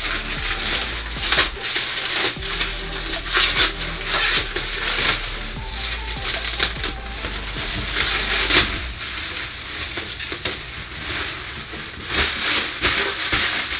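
Clear plastic packaging wrap crinkling and rustling, in irregular handfuls, as it is pulled off and crumpled up from an electric bike's frame.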